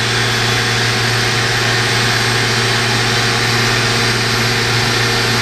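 Citizen M16 CNC Swiss lathe running: a steady hum and whir as the tool turret traverses along its Z-axis under servo drive.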